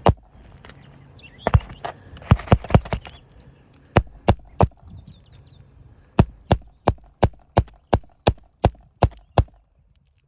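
Hammer blows on an asphalt-shingle roof: a few scattered knocks, then a steady run of about ten blows at roughly three a second in the second half.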